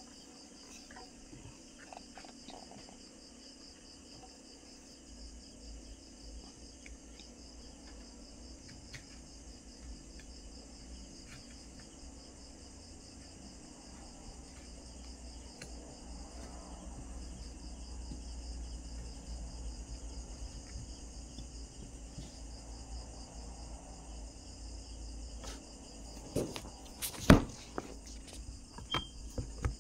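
Insects trilling in a steady pulsing rhythm, with small clicks of steel cuticle nippers snipping a toenail. One much louder sharp click comes near the end.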